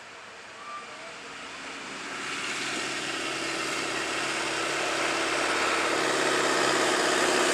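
Vintage tractor engine running steadily as the tractor drives up the lane toward the listener, growing steadily louder.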